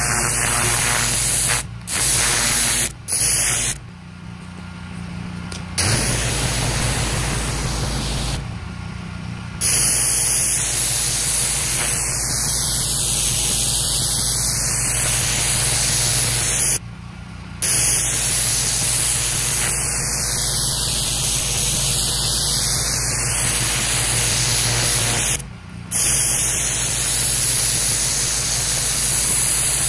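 Pressure-washer wand blasting a high-pressure water jet onto a concrete sidewalk: a loud, steady hiss of spray over a steady low hum. The spray drops out briefly several times.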